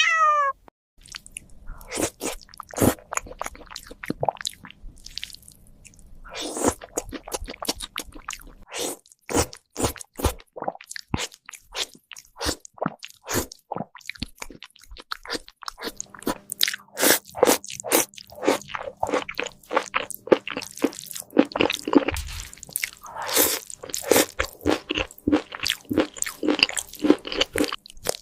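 A cat chewing crunchy food: rapid, irregular crunches and bites, growing denser in the second half.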